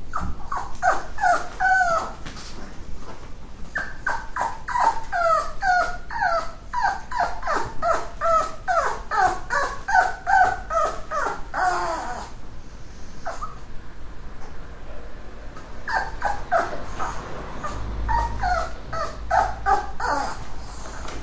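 Chihuahua barking in quick runs of short, high-pitched yaps, about three a second. It pauses briefly about two seconds in and for a longer stretch past the middle before starting up again.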